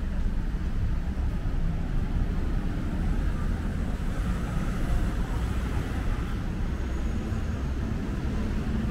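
City street ambience: a steady low rumble of traffic on the road beside the sidewalk.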